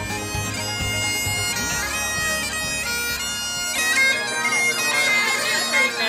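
Bagpipes playing: steady drones under a chanter melody.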